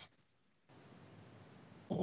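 A pause between sentences: mostly a faint steady hiss on the call audio, with the clipped end of a spoken word at the very start and a short vocal sound, like a breath or the start of a word, near the end.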